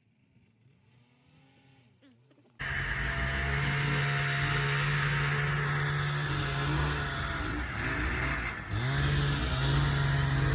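After a couple of seconds of near silence, a two-stroke snowmobile engine cuts in suddenly and runs at a steady pitch. The pitch sags briefly about eight and a half seconds in, then picks back up.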